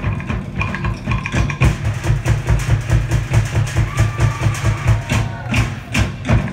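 Tahitian drum ensemble playing fast dance drumming: sharp wooden log-drum strikes over a deep bass drum, in a rapid, steady beat.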